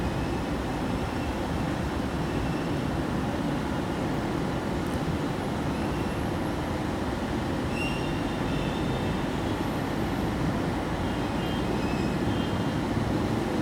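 BB303 diesel-hydraulic locomotive and its train rolling into the station with a steady low rumble, with a few faint high-pitched squeals from about eight seconds in.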